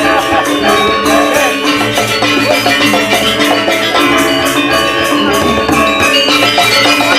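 Balinese gamelan ensemble playing a tabuh kreasi: bronze metallophones ringing in dense, interlocking layers over drums, at a steady full level.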